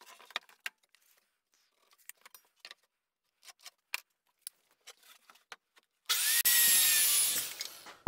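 Light taps and clicks of boards and a square being handled on the bench, then about six seconds in a Craftsman 7-1/4-inch circular saw spins up with a short rising whine and runs for under two seconds, cutting a barn board to length.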